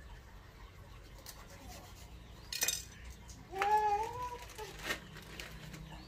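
Kitchen knife knocking and scraping on a wooden cutting board while fish is cut: a sharp knock about two and a half seconds in and another near five seconds. Between them, a short pitched cry of about a second that rises slightly.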